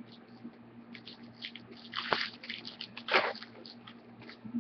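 Hockey trading cards being handled by hand over a table, with light clicks and two louder brief rustling scrapes about two and three seconds in.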